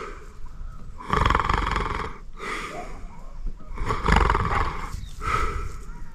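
A man breathing heavily close to the microphone: about four slow breaths in and out, alternately stronger and weaker, roughly every second and a half.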